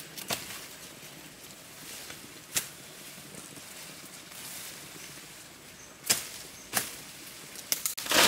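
Sharp, short taps or knocks, about half a dozen at uneven intervals and bunched together near the end, over a faint steady outdoor hiss.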